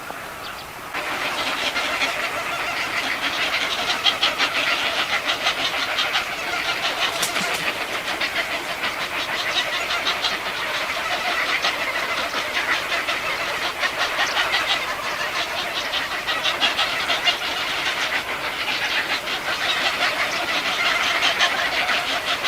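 Baby birds in the nest begging: a loud, dense chorus of rapid high chirps that starts suddenly about a second in and goes on with small swells.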